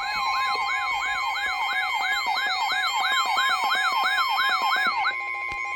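Weather radio warning alarm: a siren-like yelp rising and falling about three times a second over a steady high tone, the NOAA Weather Radio 1050 Hz warning tone, signalling an incoming severe thunderstorm warning. The yelp stops near the end, leaving the steady tone.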